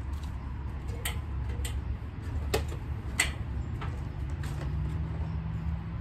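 Shoes knocking on the rungs of an aluminium extension ladder as it is climbed: about six sharp knocks half a second to a second apart, over a steady low rumble.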